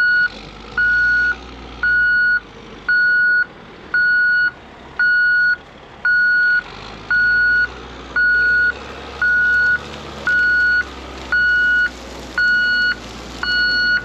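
Articulated dump truck's reversing alarm beeping steadily about once a second, a single-pitched beep, over the low running of its diesel engine as it backs up.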